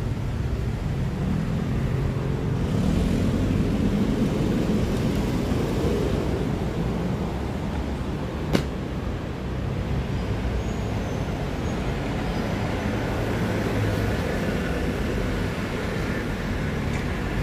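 Steady rumble of street traffic, swelling slightly a few seconds in, with one sharp click about halfway through.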